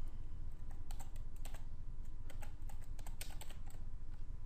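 Computer keyboard being typed on: a string of irregular, quick key clicks, over a faint steady low hum.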